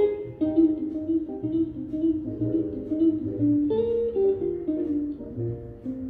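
Background music: a plucked guitar playing a melody of separate notes, with low bass notes coming in about a second and a half in.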